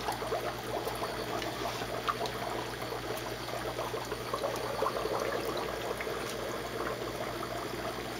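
Air bubbling and splashing inside the two compartments of a SURF8 upflow algae scrubber, fed by an air pump, over a steady low hum. The scrubber is new and still empty of algae, which is when its bubbling is loudest.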